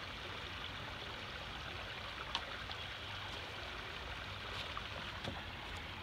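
Shallow creek running over rocks, a steady rush of water, with a few light sharp clicks over it, the loudest about two seconds in.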